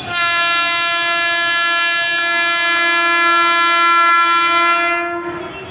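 Indian Railways EMU train's air horn sounding one long, steady blast of about five seconds that stops sharply.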